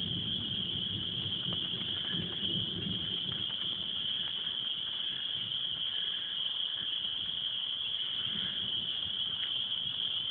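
Dense evening chorus of small calling creatures, which the speaker calls crickets: a steady high-pitched ringing with no break. A faint low rumble sits under it in the first few seconds.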